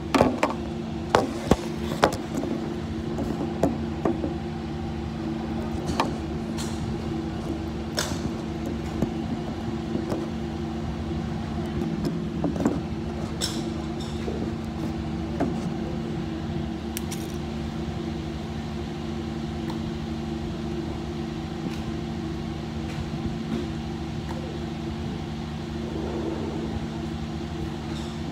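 Golf balls being struck at a driving range: sharp clacks, several in the first two seconds and then every few seconds, over a steady low mechanical hum.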